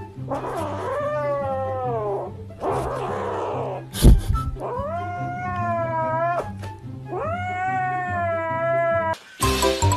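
Grey kitten yowling: three long, drawn-out calls of about two seconds each that slowly fall in pitch, with a breathy, noisy stretch after the first call and a sharp thump about four seconds in. Background music with a low repeating pattern runs underneath.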